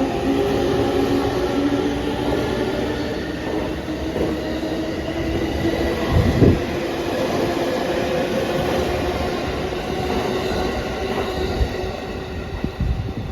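E231-1000 series electric multiple unit departing, its VVVF inverter traction motors whining with several steady tones over the rumble of the wheels on the rails. There is a single loud low thud about six seconds in.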